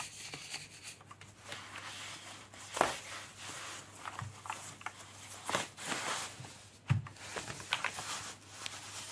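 Rustling of packaging and plastic wrap, with a few light knocks and clicks, as a keyboard is handled and unwrapped from its box. Two sharper knocks stand out, about three seconds in and again near seven seconds.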